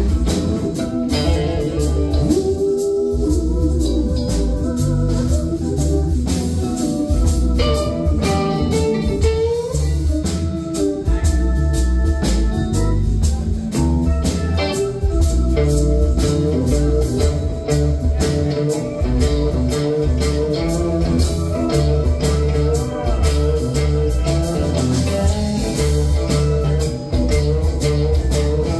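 Live rock band playing an instrumental passage: electric guitars, bass guitar, drum kit and organ-toned keyboards, with melodic guitar lines over a steady bass and drum groove.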